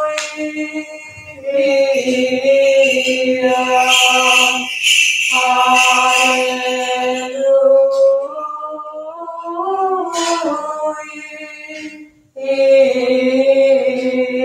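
Byzantine liturgical chant, a voice singing long held, slowly moving notes of an Orthodox hymn, with a short break about twelve seconds in.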